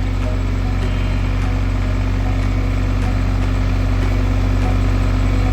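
A vehicle engine running steadily, with a low, even hum and its loudness creeping up slightly.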